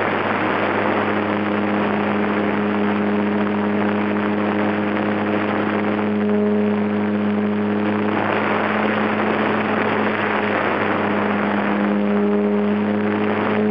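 HobbyZone Super Cub's brushed electric motor and propeller running at a steady pitch, heard from on board in flight, with wind rushing over the microphone.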